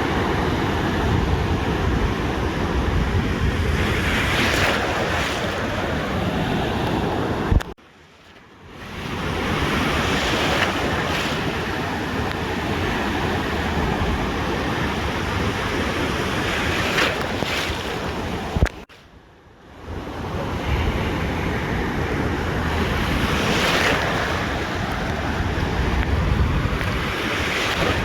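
Ocean surf breaking and washing up the beach in repeated swells, with wind buffeting the microphone as a heavy low rumble. The sound cuts out abruptly for about a second, twice.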